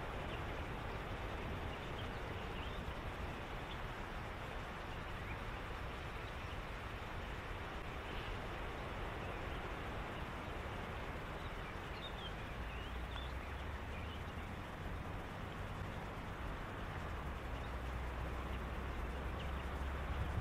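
Evening outdoor ambience: a steady hiss with faint, short bird calls now and then, and a low rumble that grows louder near the end.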